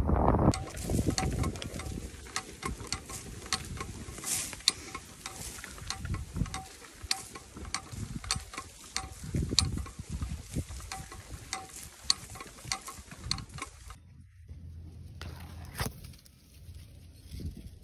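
Walking through tall dry grass: many sharp crackles and rustles of stems brushing and snapping, with a faint pulse about twice a second. About fourteen seconds in it changes abruptly to a softer low rumble.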